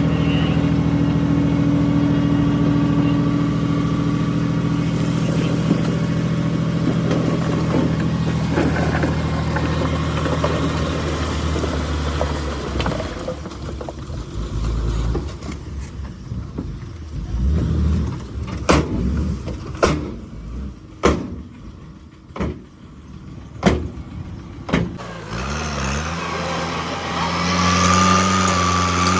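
Bulldozer's diesel engine running steadily under load, then easing off for a stretch with about six sharp knocks. The engine revs back up near the end.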